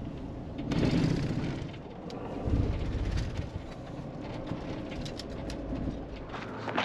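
Van driving slowly over a dirt and gravel lot: low engine rumble and tyre noise on loose ground, with a louder stretch about a second in and a jolt at about two and a half seconds.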